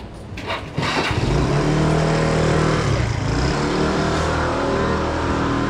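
A motor vehicle engine running loud and close, coming in suddenly about a second in, its pitch rising and falling as it revs.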